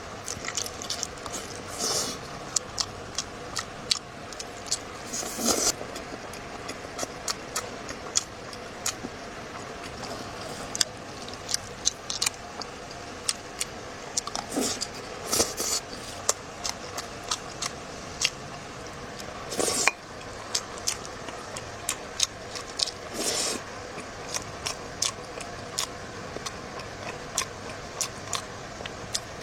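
Close-up eating sounds: wet chewing and lip-smacking with many sharp clicks. There are a few short, louder bursts about two, five and a half, fifteen, twenty and twenty-three seconds in.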